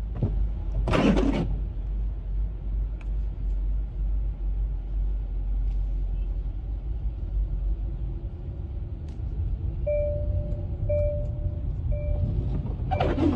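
Steady low rumble of a car driving, heard from inside the cabin, with a brief louder burst about a second in and another near the end. From about ten seconds in, a short beep repeats about once a second.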